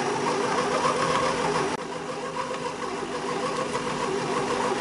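Compact Cook Elite multicooker's motor running steadily, its blade turning the flour, butter and water mixture in the bowl to cool it and work it into choux pastry dough. The hum drops slightly in level a little under two seconds in.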